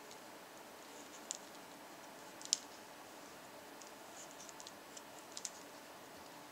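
Knitting needles clicking faintly and irregularly as knit stitches are worked, with a sharper click about two and a half seconds in and a cluster of small ticks in the second half.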